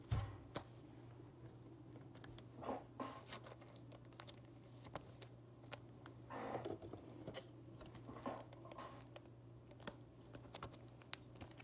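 Faint handling of plastic trading-card sleeves and a rigid top loader: scattered light clicks and a few short rustles as a thick memorabilia card is slid into a bigger sleeve, over a steady low hum.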